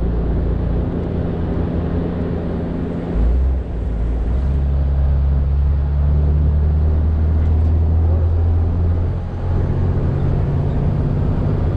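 A motor vehicle running, with a loud, steady low engine hum whose pitch steps up about three and a half seconds in, as on a gear change.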